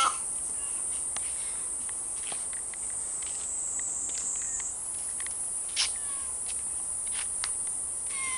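Steady high-pitched insect chorus, its pitch dipping slightly for a couple of seconds midway, with scattered faint clicks.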